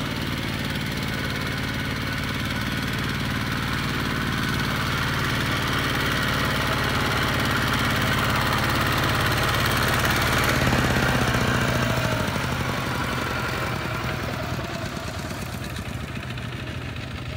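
Single-cylinder diesel engine of a two-wheel walking tractor chugging under load as it hauls a trailer of rice sacks. It grows louder as it comes past about ten seconds in, then fades as it moves away.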